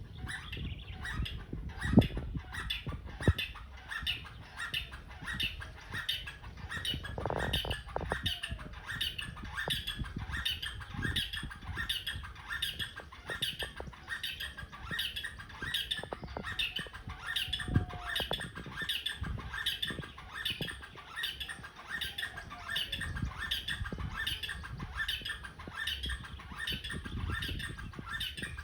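Birds chirping without a break, short sharp chirps at about three to four a second, with a few low thumps mixed in.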